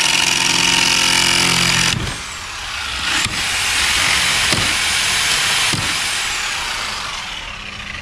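Sawzall reciprocating saw cutting off the screws that hold redwood fence rails to a post: a loud, harsh, steady buzz with a motor whine. It eases off about two seconds in, cuts hard again from about three seconds, and dies away near the end.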